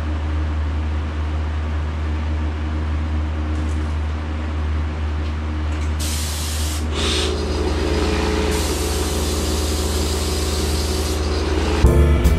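Spray gun hissing as it sprays a waterborne clear coat, starting about halfway through and stopping shortly before the end, over a steady low machine hum. Music comes in at the very end.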